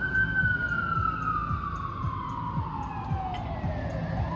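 Emergency vehicle siren wailing: one long, slow fall in pitch, then starting to rise again near the end, over a low traffic rumble.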